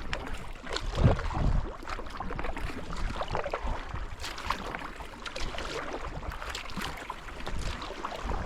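Water splashing and lapping around a canoe being paddled, with irregular paddle splashes. The loudest splash comes about a second in.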